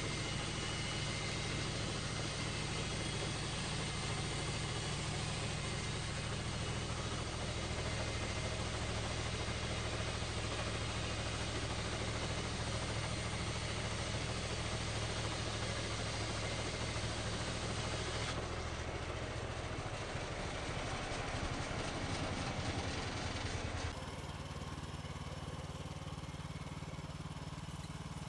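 Woodland Mills HM130 Max portable bandsaw mill's gas engine running steadily while the band blade saws soft, wet pine. The sound changes abruptly about 24 seconds in, then goes on a little quieter.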